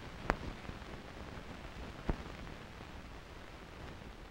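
Steady hiss from an old 16mm film soundtrack between lines of narration, with two sharp clicks, about a third of a second in and about two seconds in.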